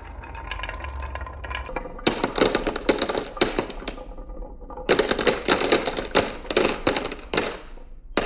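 Glass marbles clattering down a marble-run track in two spells of rapid clicking and rolling, the first starting about two seconds in and the second about five seconds in.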